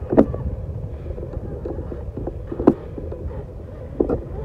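Wind buffeting the microphone, with the faint steady whine of a distant RC boat's motor running across the water. Three brief sharp clicks cut through, near the start, in the middle and near the end.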